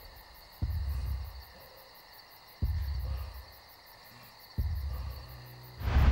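Deep booming hits in a film soundtrack, three of them about two seconds apart, each dying away over about a second. A loud rush of noise swells in just before the end.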